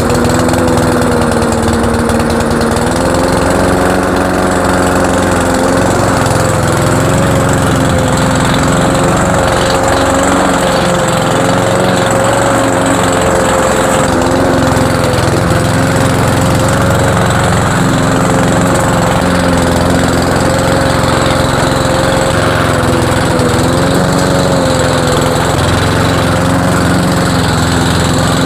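A Cub Cadet walk-behind mower's 173cc PowerMore single-cylinder engine runs steadily at mowing speed while cutting grass. Its pitch dips and then rises slightly about three seconds in, and wavers gently as the load changes.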